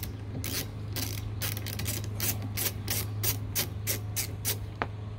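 Half-inch-drive flex-head ratchet clicking in a regular run of sharp clicks, about four a second, as it unscrews the 15 mm nut holding a wiper arm. The clicking stops shortly before the end.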